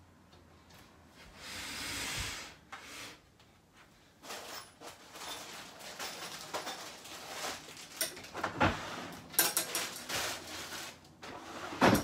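Handling noises around a wooden crib: rustling, then scattered light clicks and knocks, ending with a sharp knock as a wooden dresser drawer is pushed shut.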